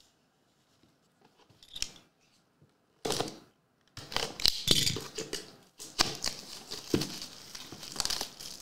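Trading-card packaging being opened: after a few quiet seconds and a sharp click, a run of crinkling, tearing wrapper noise with many sharp clicks.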